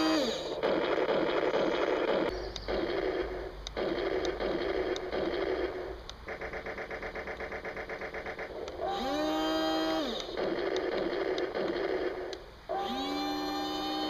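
Remote-control toy Abrams tank's built-in sound effects through its small speaker: an electronic engine hum drops in pitch and cuts out, giving way to noisy rumbling stretches and a fast rattling run of about six pulses a second in the middle. The engine hum then rises in pitch and settles into a steady drone, twice near the end.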